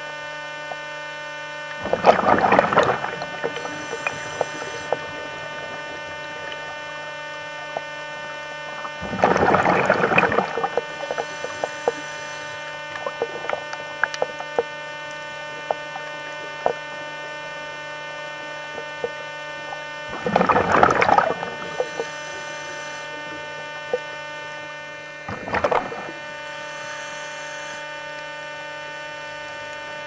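Scuba diver's regulator breathing underwater: four bubbling exhalations of about a second each, some followed by a faint high hiss of inhalation. Under them runs a steady electrical hum, with scattered small clicks.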